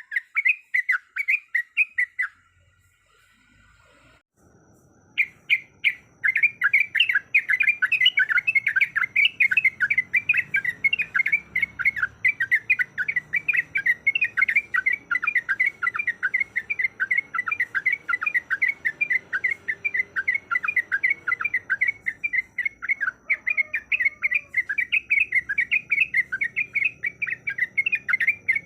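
Sooty-headed bulbul (trucuk) giving its fast rolling chattering song, a long run of quick, rapidly repeated notes. It breaks off about two seconds in and resumes about five seconds in, then goes on without a break.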